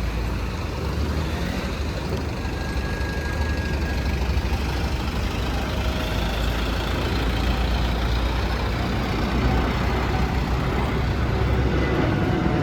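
Steady low rumble of street traffic, with truck and bus engines, growing slightly louder toward the end.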